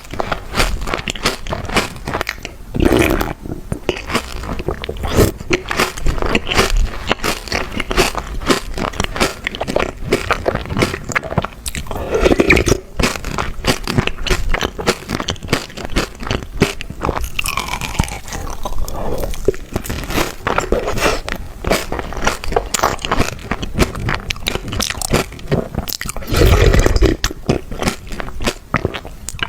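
Someone biting into and chewing chocolate: a dense run of crunching clicks, with a few louder bites.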